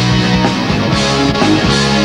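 Live rock band playing: electric guitars, bass and a drum kit with steady drum hits.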